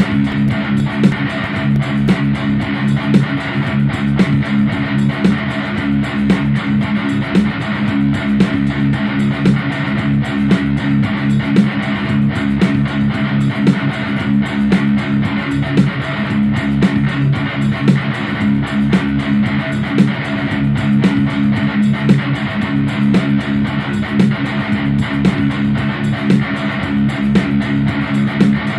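Guitar-led instrumental music with a steady beat.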